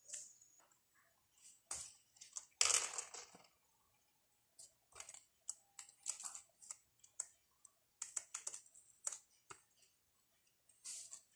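Scattered light clicks and taps of pencils and pens on a table as a kitten paws at a pencil, with a longer rustle of paper about three seconds in.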